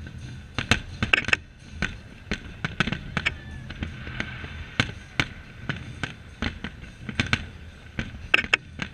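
Aerial fireworks bursting in a dense, irregular barrage of sharp bangs, several a second, over a steady low hum. The loudest cracks cluster about a second in and again shortly before the end.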